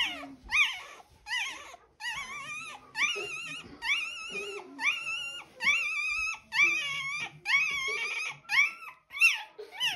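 Newborn German Shorthaired Pointer puppy squealing over and over in high-pitched cries, about two a second, many rising then falling in pitch. It is distress at being held down for tail docking and dewclaw removal.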